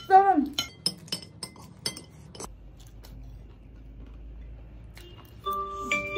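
Metal spoons clinking and scraping against ceramic plates in a quick run of sharp clinks over the first couple of seconds, then falling quiet. Near the end, a few steady chiming tones begin.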